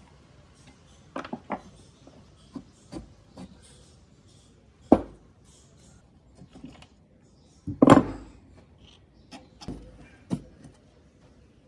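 Screwdriver and rusty steel parts of an old laminator clinking, scraping and knocking against each other and the wooden bench as the roller ends and end bracket are pried apart. Irregular clicks throughout, with louder knocks about five and eight seconds in.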